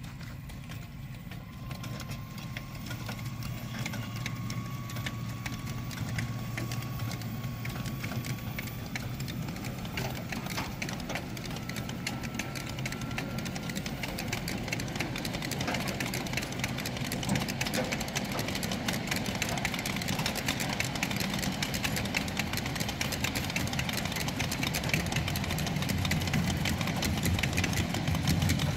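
E-Steam 0-8-0 miniature locomotive pulling a long train of loaded hopper cars away from a standstill. A thin motor whine rises slowly in pitch over the first half as it gathers speed, under a steady rumble and rapid clicking of the cars' wheels on the track. It grows steadily louder as the train rolls past.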